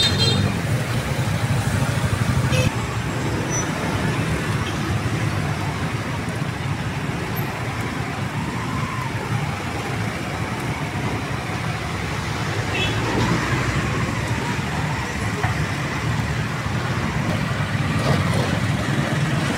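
Steady road traffic noise from passing vehicles, a low rumble with no break. A few light clicks sound right at the start, and the level drops a little about two and a half seconds in.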